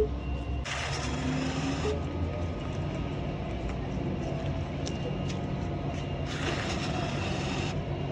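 City bus engine running steadily, with two bursts of pneumatic air hiss, each a bit over a second long, one near the start and one near the end.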